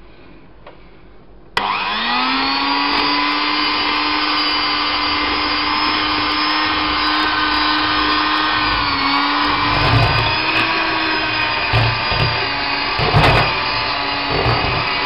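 Electric mixer switching on about a second and a half in, spinning up quickly and then running steadily while it beats cake batter of butter, sugar, egg and flour, with a few low bumps later on.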